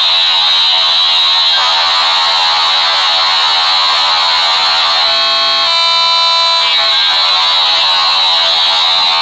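Dial-up modem handshake at its hissing stage: a loud, steady rush of noise with a high steady tone on top. About five seconds in, a warbling set of tones breaks through for under two seconds before the hiss carries on.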